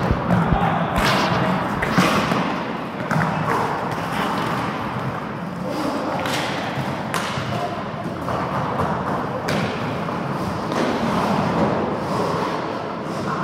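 Roller hockey in play: several sharp knocks and thuds of sticks, ball and skates over a steady rumble of skate wheels rolling on the floor.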